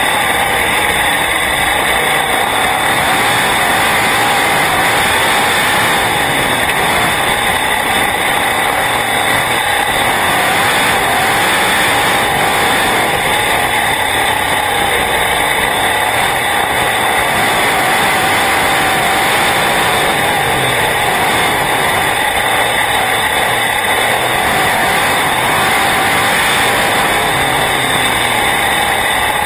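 Sprint car's V8 engine running at racing speed, heard from the open cockpit: loud and steady, its pitch rising and falling only slightly.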